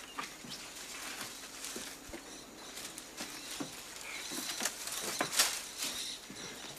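Scattered crackles, creaks and rustles of dry palm thatch and broken wooden debris being stepped through and pushed aside, with a louder crack about five seconds in.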